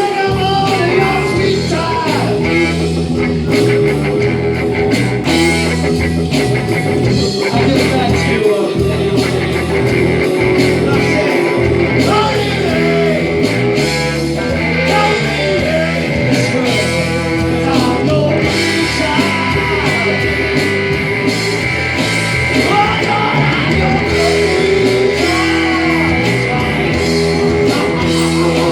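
Live rock band playing: a singer over electric guitar, bass and a steady drum beat.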